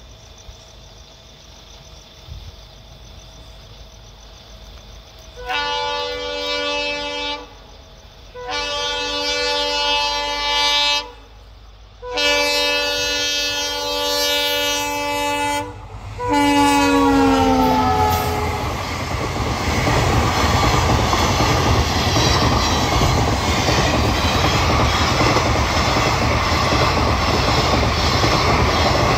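Indian Railways express train approaching: the locomotive's multi-tone horn sounds four long blasts, the last one dropping in pitch as the locomotive passes. This is followed by the steady rumble and wheel clatter of the passenger coaches going by at speed.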